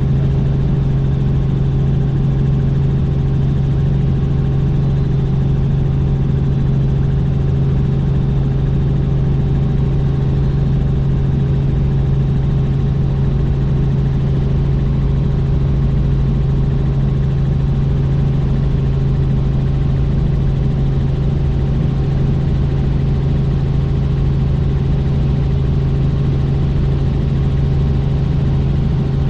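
Helicopter in flight: the steady drone of its engine and rotors, dominated by a strong, constant low hum that does not change throughout.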